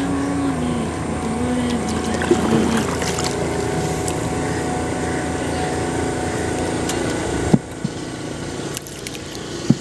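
A motorboat engine running steadily, with a sharp click and a sudden drop in level about seven and a half seconds in.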